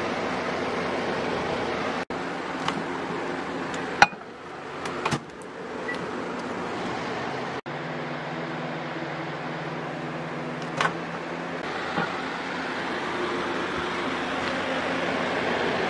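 A Hamilton Beach microwave oven runs with a low steady hum for about four seconds around the middle, over a constant rushing background noise. A few light clicks and clinks come a little earlier.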